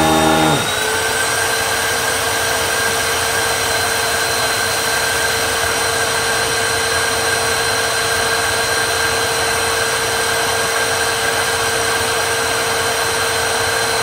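Hoover WindTunnel 3 bagless upright vacuum running at full power with its brush roll off, its nozzle drawing air through carpet: a loud, steady motor whine over a rush of air. About half a second in, the lower hum drops away and the sound settles into one even pitch.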